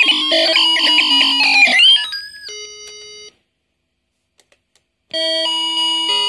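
Circuit-bent VTech Alphabet Apple toy's sound chip spewing glitchy electronic tones that jump and slide in pitch, pitch-shifted by touching the bend contacts. About two seconds in it settles on a held chord, cuts out for nearly two seconds, then restarts with steady tones stepping in pitch.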